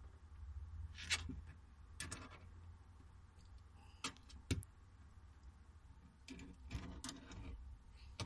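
Mother dog licking and shifting in a whelping box: faint, scattered wet clicks and rustles, with a busier patch of them about six seconds in, over a low steady hum.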